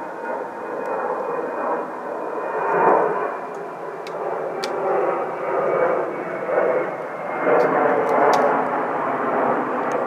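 Airplane flying over: a steady rushing engine noise that swells and eases, with a faint high whine running through it.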